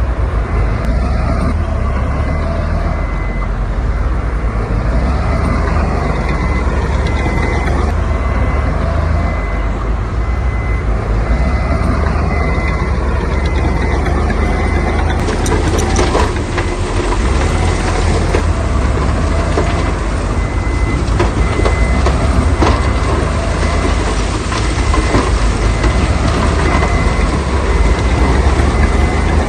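Heavy diesel construction machinery running, with a reversing beeper sounding over and over. About halfway through, a rattling, scraping clatter joins in, consistent with rock being moved.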